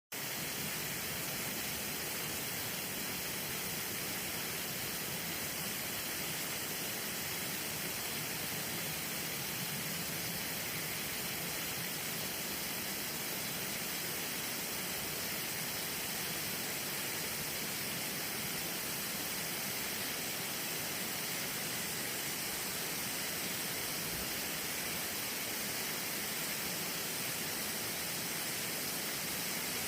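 Garden hose spraying water, a steady, even hiss that does not change.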